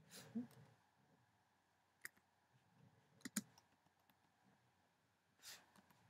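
A few isolated computer keyboard keystrokes, about two and three seconds in, with near silence between them.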